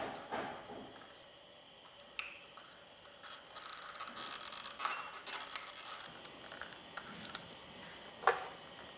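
Hands working a wiring harness and its plastic connectors into the motorcycle's power outlet socket: faint scraping and rustling, with a sharp click about two seconds in and a louder one near the end.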